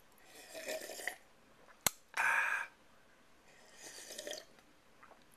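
A man sipping coffee: three short, breathy sips, the middle one loudest, with one sharp click a little under two seconds in.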